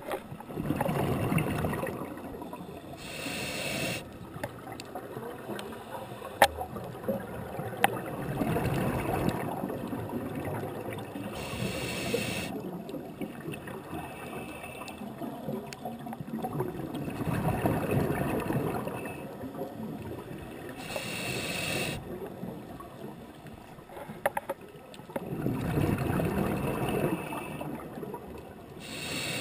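Scuba diver breathing through a regulator underwater: a short hissing inhale, then a long bubbling exhale, the cycle repeating roughly every nine seconds.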